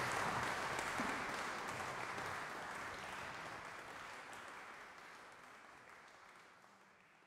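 Audience applauding, the sound fading away steadily until it is almost gone.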